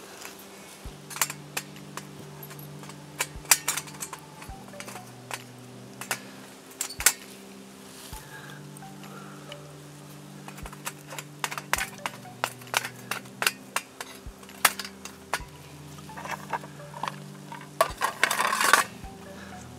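Wood burning in a stainless-steel wood gas stove, crackling and popping with scattered sharp cracks, under soft background music of sustained notes. Near the end a metal tin is set onto the stove with a short clatter of metal on metal.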